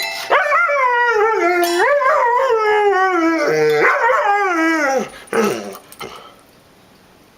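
A dog howling: one long wavering call that slides up and down and sinks lower in pitch, followed near the end by a couple of short yelps.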